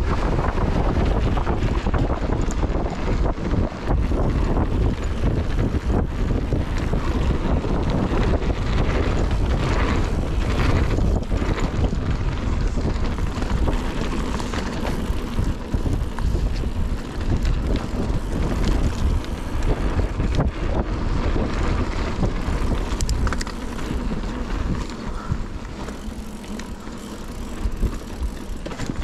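Wind buffeting a GoPro's microphone over a Giant Reign full-suspension mountain bike rolling fast down a dirt trail: tyre noise with constant small rattles and clatter from the bike. The riding noise drops somewhat in the last few seconds.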